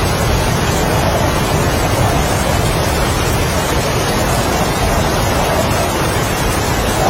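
Heavy rain and strong wind making a steady, dense noise with a deep rumble, and gusts that swell and fade as a faint whistle.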